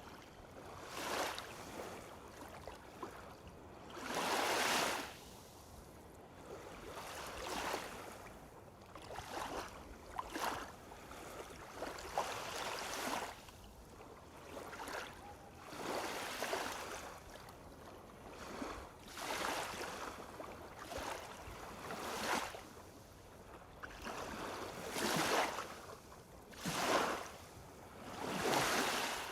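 Lake waves washing onto a shore, a new surge every two to three seconds.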